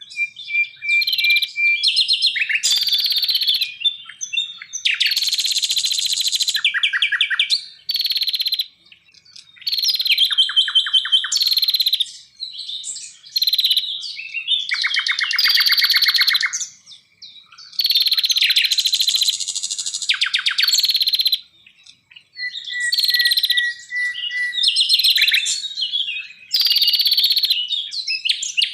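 Songbird singing loudly in varied phrases of clear whistles and fast trills, each one to three seconds long with short pauses between, including a couple of steady held whistles.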